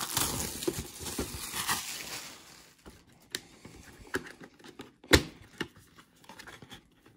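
Plastic shrink wrap crinkling and tearing as hands strip it off a cardboard Funko Pop box, then a few light taps and clicks as the boxes are handled, the sharpest about five seconds in.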